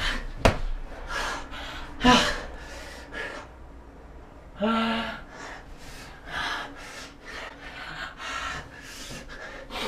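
Heavy, out-of-breath gasping and panting from wrestlers worn out by the struggle, with a couple of short voiced grunts among the breaths. The breaths come about two a second later on. A sharp click sounds about half a second in.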